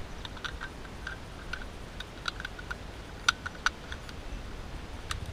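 A scattered series of light, irregular clicks and ticks, with two sharper clicks a little over three seconds in.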